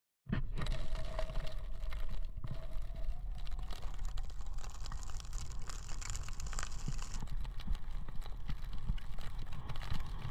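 Jeep Grand Cherokee driving: a steady low road rumble with scattered clicks and crackles, starting suddenly just after the start.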